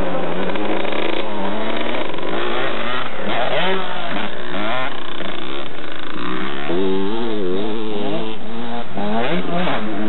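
Two-stroke Kawasaki KX125 motocross bike engines running hard, their pitch repeatedly rising and falling as the riders work the throttle.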